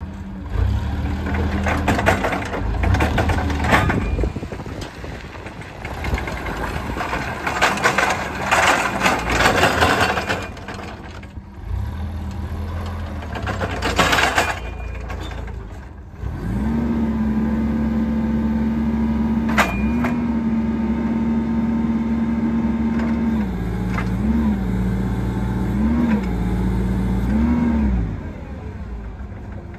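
Toyota forklift's engine running as the forklift drives over gravel, with crunching and rattling. About halfway through the engine speeds up and holds a steady higher pitch, gives a few short revs near the end, then drops back.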